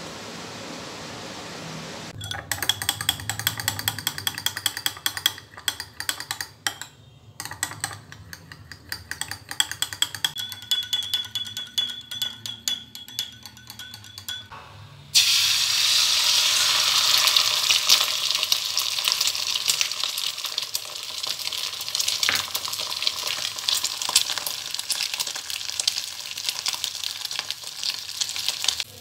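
A metal spoon beating egg in a small glass bowl: quick, rapid clinking strokes against the glass. About halfway through the egg hits a hot non-stick pan and a loud, steady frying sizzle takes over.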